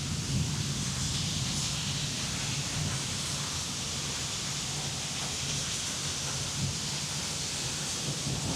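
Steady hiss of falling rain, with the tail of a thunder rumble dying away in the first second or so.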